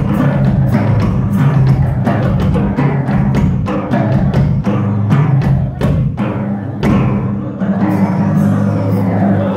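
Live drum solo on a Ludwig rock drum kit: rapid strokes on the toms and snare over deep, ringing tom tones, the strokes thinning out after about five seconds.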